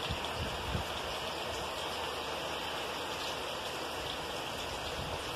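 Heavy rain falling steadily: a dense, even hiss. A few soft low thumps come within the first second.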